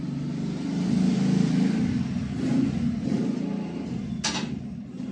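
Low rumble of a motor vehicle engine that swells about a second in and then eases off, with a brief scraping noise about four seconds in.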